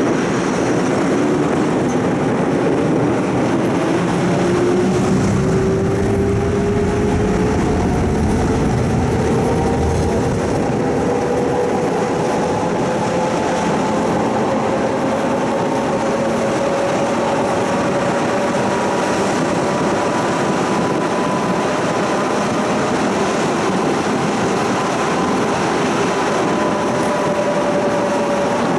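Tram in motion, heard from inside the car: steady rolling noise under an electric traction motor whine that rises slowly in pitch as the tram gathers speed, then holds level near the end.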